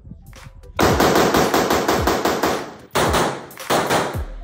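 Daniel Defense DDM4 V7 Pro AR-15 rifle fired rapidly in semi-automatic, two fast strings of shots at about six or seven a second with a short break between them. Faint clicks come before the first shot.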